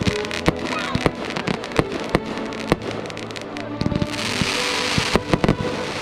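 Fireworks going off: a rapid run of sharp bangs from bursting shells, with a stretch of hissing crackle about four seconds in.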